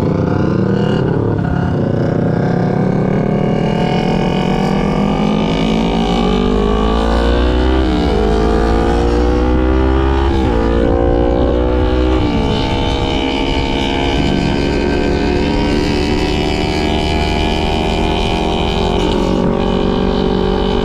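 A 250 cc parallel-twin sport motorcycle accelerating through the gears. The engine note climbs and drops sharply at three upshifts, then runs at a fairly steady pitch, over wind rumble on the microphone.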